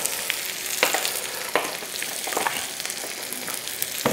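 Fried potatoes with bacon and onions sizzling in oil in a frying pan, a steady hiss broken by scattered sharp clicks as the pan is worked.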